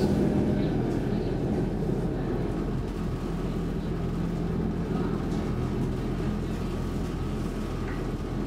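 Cabin noise inside a Saltsjöbanan C10 electric commuter train running at speed: a steady rumble with a low hum.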